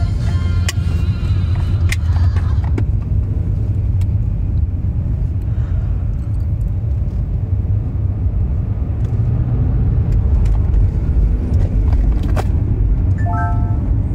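Steady low rumble of a car heard from inside the cabin, engine and road noise. A short beeping tone sounds near the end.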